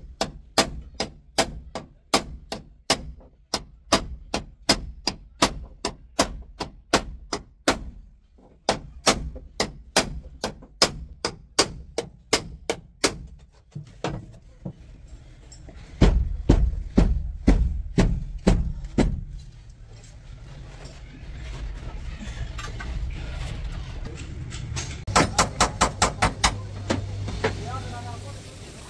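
Hammering on the sheet metal of a truck cab being repaired: a long run of sharp, evenly spaced metal strikes, about two or three a second. Heavier blows follow, then a quick rattle of strikes near the end.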